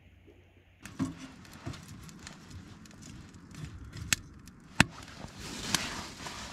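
Kindling catching in a small metal wood-burning tent stove: crackling, with sharp snaps and knocks of sticks being handled, the loudest about two thirds of the way in, and a rising rush of flames from about five seconds in.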